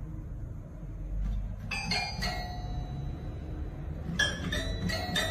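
Toy piano keys pawed by a cat: a few tinkly, bell-like notes in two short clusters, one about a second and a half in and another near the end.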